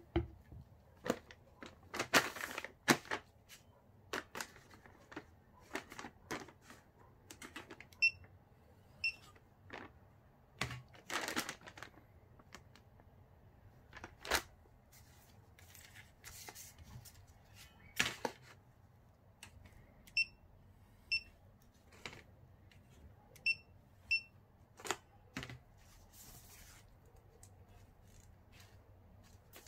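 Items being handled on a table: plastic packaging crinkling, with irregular knocks and clicks as things are picked up and set down. Three times, a pair of short high beeps about a second apart comes from the handheld inkjet coder.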